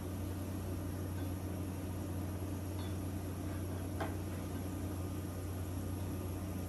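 Steady hum and hiss of a Blackstone four-burner propane griddle's burners running on high during seasoning, with a faint click about four seconds in.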